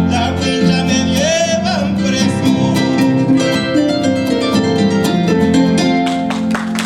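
A harp played live with a voice singing along: quick plucked notes over a low bass, with a sung note wavering about a second in. The music stops at the very end as the piece finishes.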